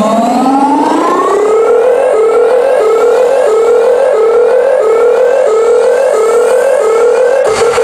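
Live electronic dance music over festival speakers in a build-up: a long rising sweep, then a siren-like synth repeating a short upward glide about three times every two seconds, with the bass dropped out. Near the end a sharp hit lands and the low end comes back in.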